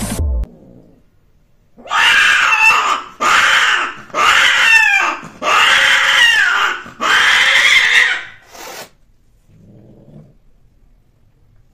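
A cat yowling during mating: five loud, drawn-out cries of about a second each, wavering and falling in pitch, with short gaps between them.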